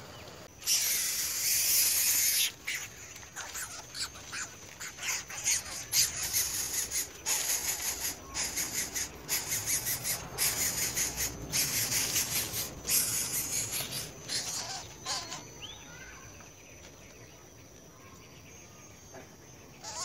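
Nestlings at a ground nest giving harsh, hissing begging calls in quick fluttering bursts while a greater coucal stands over them. The calls stop about fifteen seconds in, leaving a faint steady high tone.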